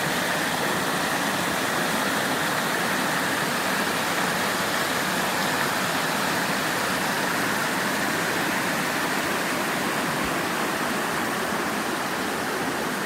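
Rushing water, a steady unbroken rush.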